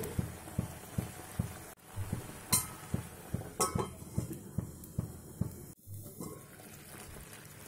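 Thick grape jam boiling hard in a non-stick pan, plopping several times a second. A stainless steel lid clinks twice around the middle as it is set on the pan.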